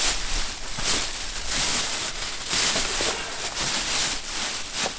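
Packaging being handled, rustling and crinkling in loud uneven swells that stop suddenly at the end.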